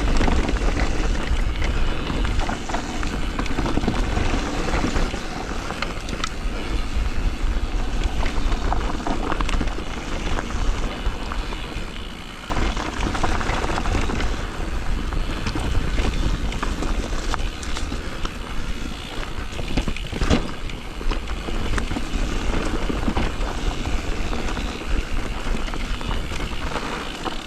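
Electric mountain bike descending a dry, loose trail: wind buffets the microphone and the tyres hiss and scrabble over dirt. Many short knocks and rattles come from the bike going over bumps.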